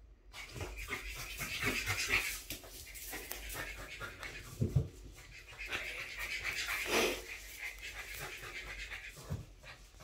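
French bulldog puppy panting, with many small clicks and rustles as it moves about on the tile floor and in its toy basket, and a couple of soft thumps.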